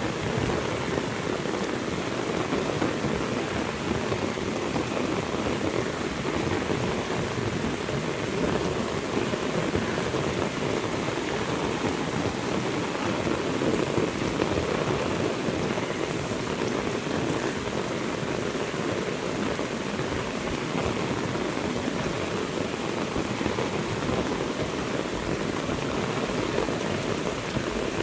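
Heavy rain falling steadily, a dense patter of drops on surfaces with no break.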